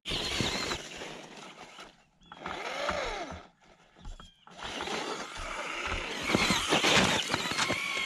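Traxxas Stampede two-wheel-drive RC truck's electric motor and gears whining, rising and falling in pitch as the throttle is worked, with the tyres churning through snow. It cuts out briefly twice and is loudest near the end.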